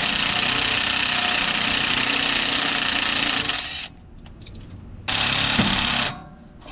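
Cordless impact wrench hammering on a cylinder head nut of the Mack Magnadyne six: one long run of about four seconds, a pause, then a short burst of about a second.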